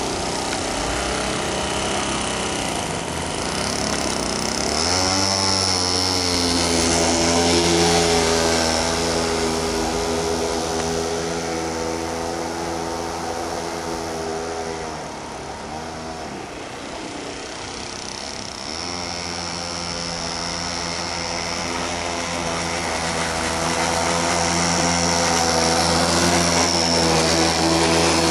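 A homemade boat's 25cc two-stroke string-trimmer engine running at high revs on its first run, a steady buzzing drone. Its pitch swoops twice and its loudness swells and fades as the boat passes and turns.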